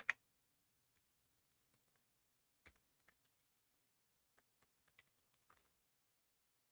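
Faint computer keyboard typing: a scatter of light key clicks as an email address is typed in.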